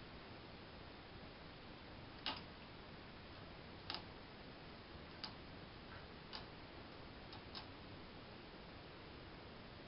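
Light pull cord knocking against the wall tiles as a kitten bats at it: six sharp light taps, spaced about a second apart with the last two close together, the first the loudest, over a faint steady hiss.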